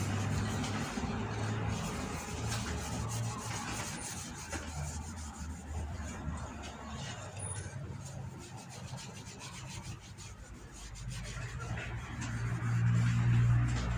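A hand rubbing back and forth over the face of a wooden cutting board, a quick run of short rubbing strokes. A low hum runs underneath and grows louder near the end.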